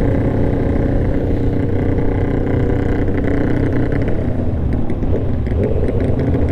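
Kawasaki ZX-10R's inline-four engine running at road speed, heard from the rider's seat under heavy wind rush on the microphone. The steady engine note eases off about four seconds in as the bike slows.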